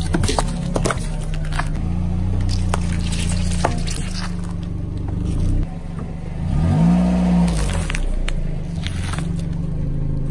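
A car tyre rolling over and crushing cartons of tomato sauce with crackling and squishing, then flattening a plastic box of lit birthday candles. Under it runs the car engine's steady low hum, which briefly rises and falls in pitch about seven seconds in.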